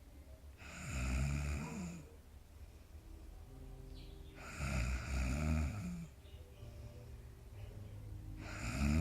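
Sleeping dog snoring: three long snores about four seconds apart, each lasting about a second and a half, the third starting near the end.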